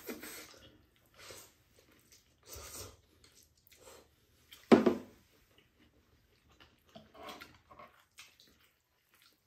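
Glass noodles being slurped and chewed at the table: a slurp at the start, then a few short, scattered slurping and chewing noises. About five seconds in comes one brief, louder grunt-like vocal sound.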